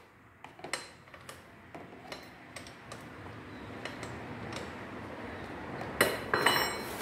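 Light metal clicks and clinks of a hand wrench working at the oil drain bolt under a small quad bike's engine, with a louder metal-on-metal clatter about six seconds in. The bolt is stubborn and won't come loose with this wrench.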